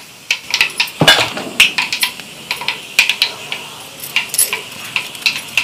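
Spoon clinking and scraping against a metal cooking vessel while stirring, in scattered sharp clinks.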